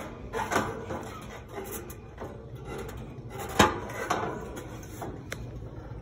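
Metal wire fan grille on top of an outdoor AC condenser unit knocking and rattling as it is handled and seated, with a few scattered clanks and one sharp knock about three and a half seconds in. The condenser fan is not running.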